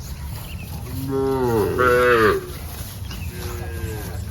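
Cow mooing: one long, loud moo starting about a second in and falling in pitch at its end, then a second, shorter and quieter moo near the end, over a steady low rumble.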